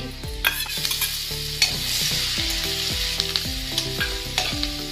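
Ground green chilli paste sizzling in hot oil with garlic and curry leaves in a metal kadhai while a spoon stirs and scrapes the pan. The sizzle grows louder about a second and a half in, with a few sharp clicks of the spoon against the metal.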